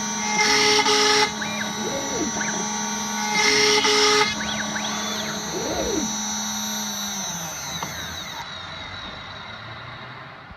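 DIY CNC router cutting MDF with its spindle running at 18,000 RPM: a steady high whine, with two short, louder bursts of cutting about half a second and three and a half seconds in, and whines rising and falling in pitch as the axes move. From about seven seconds in, the spindle winds down, its whine sliding lower and fading away.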